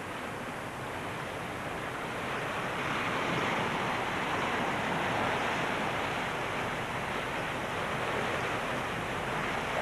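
Steady rushing noise, swelling a little after about two seconds.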